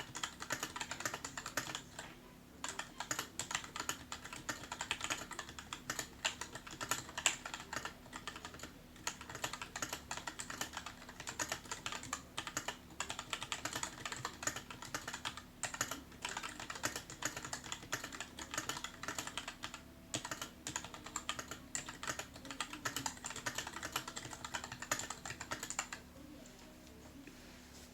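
Continuous typing on a stock, unmodded Keychron K2 v1 mechanical keyboard: rapid, irregular key clacks with a few brief pauses, stopping near the end.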